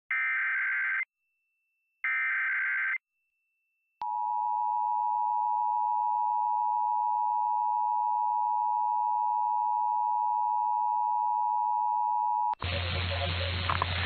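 Emergency Alert System SAME header: two one-second bursts of digital data tones with a second of silence between them. About four seconds in comes the steady two-tone EAS attention signal, 853 and 960 Hz. It lasts about eight and a half seconds and cuts off suddenly into hissy broadcast audio with a low hum as the test message begins.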